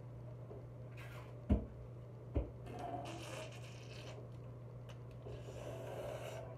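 Two sharp knocks, like things set down on a hard surface, then bouts of rustling and scraping as items are handled, over a steady low hum.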